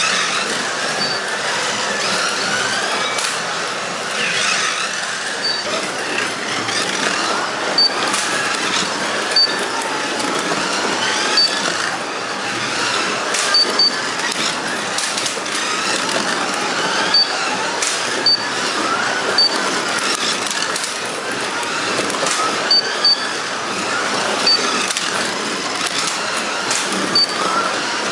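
Carrera Digital 1/24 slot cars racing, their small electric motors whining and rising and falling in pitch as the cars speed up and slow down through the corners. Short high electronic beeps sound every second or two.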